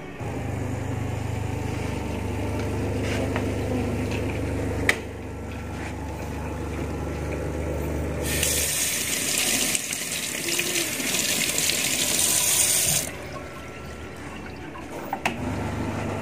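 Water running from a single-lever chrome mixer tap into a stainless steel sink: an even hiss that starts about eight seconds in and stops after some four or five seconds. A steady low hum comes before it.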